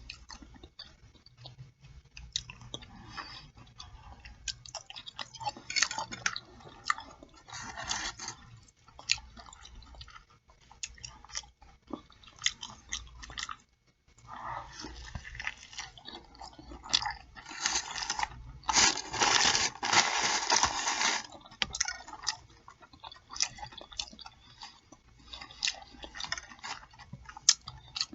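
Close-miked chewing and lip smacking, with many small wet clicks of the mouth. There is a louder, denser stretch of chewing about two-thirds of the way through.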